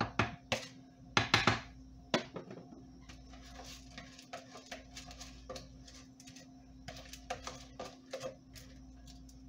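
A wooden spoon knocking and scraping against a plastic bowl as wet, washed rice is scooped out into a pressure cooker pot. There are several sharp knocks in the first two seconds, then softer scattered scraping and tapping.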